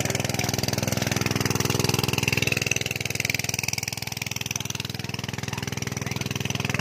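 An engine running steadily at an even speed, with a fast regular pulse.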